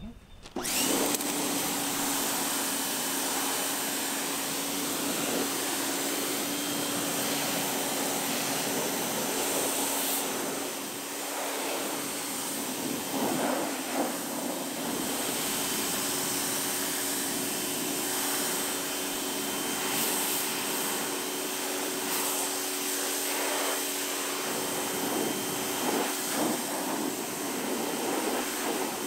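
Pressure washer running: the water jet hisses steadily against the tractor's steel wheel rims and rubber tyres, starting abruptly just under a second in, with a steady machine hum underneath.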